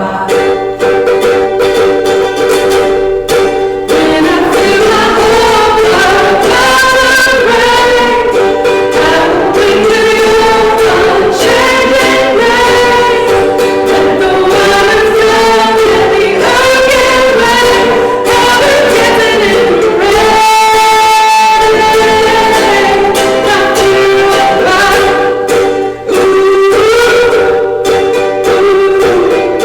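Live worship music: a strummed string instrument with singing.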